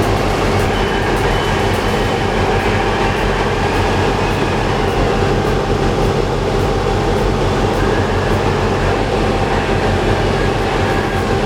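Heavy machine's diesel engine running steadily, a loud, even rumble that does not change.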